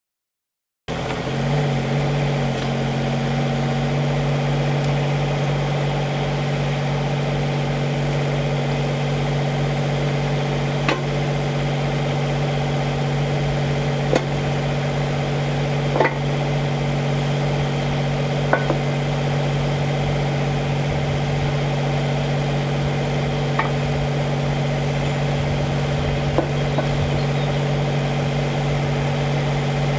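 Mini excavator's diesel engine idling steadily, starting about a second in. A handful of sharp knocks of stones being handled are heard over it.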